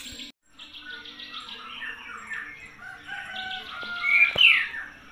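Small birds chirping and twittering continuously, with a louder falling call about four seconds in.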